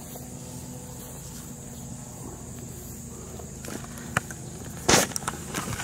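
Steady outdoor background with a low hum, then in the last two seconds a few sharp clicks and a loud brief rustle: handling noise on the camera microphone.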